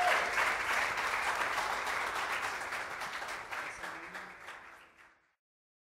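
Audience applauding, gradually fading out until it cuts to silence about five seconds in.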